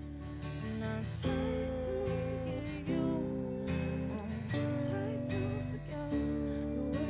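Live rock band playing an instrumental break: an electric guitar plays a bending lead melody over bass, strummed acoustic guitar and drums. The drums come in strongly about a second in, hitting steadily a little more than once a second.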